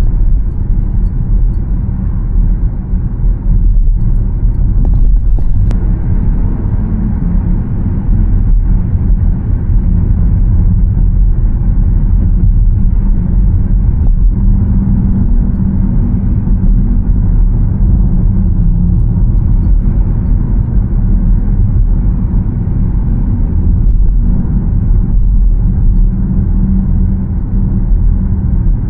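Škoda Elroq electric SUV on the move: a steady low rumble of tyres and road noise, with no engine note.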